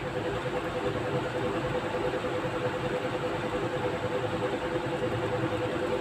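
Steady mechanical hum with one held tone and an even hiss behind it, unchanging throughout.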